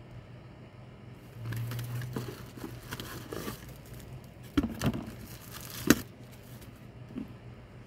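Clear plastic bag and paper leaflet crinkling and rustling as they are handled. There are several sharp snaps of the plastic between about four and a half and six seconds in, the loudest near six seconds, over a faint steady hum.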